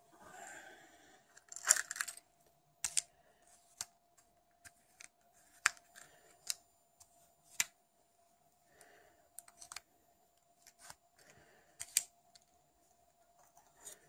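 Irregular sharp clicks and taps, about a dozen, with light rustling between them, from a metal-cased key-fob remote and a small receiver board being picked up and handled on a wooden table.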